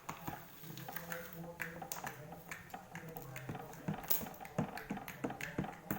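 Pink glitter slime being squeezed and stretched by hand, giving irregular small sticky clicks and pops.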